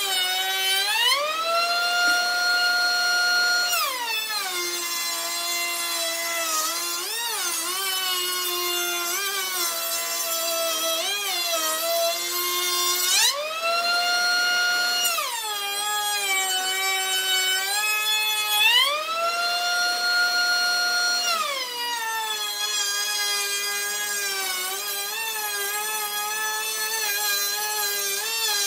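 Table-mounted router running a bit through a board's edge: its whine sits lower and wavers while the board is fed past the bit, and three times rises to a higher steady pitch as the board comes off and the motor spins free.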